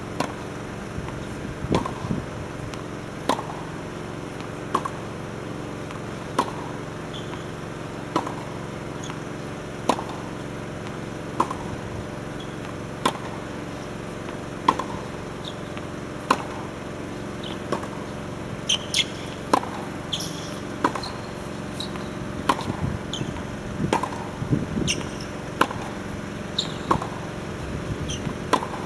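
Tennis balls being struck by rackets in a steady practice rally, a sharp pop about every one and a half seconds, with fainter ball bounces between the hits.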